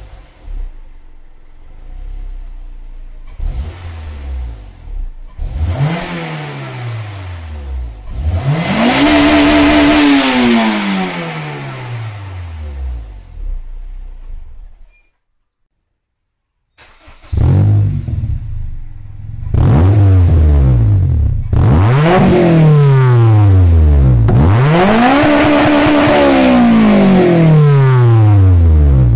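Honda S2000's inline-four free-revved at standstill through the stock exhaust: idle, a few short blips, then one long rev that climbs, holds and falls back. After a short gap the same engine is revved through an aftermarket Invidia N1 exhaust, with quick blips and two long rises that hold and fall back.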